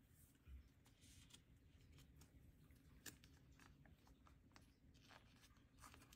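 Near silence, with faint scattered crinkles and light clicks of clear plastic binder pocket sleeves as sleeved photocards are pushed into them, over a low steady hum.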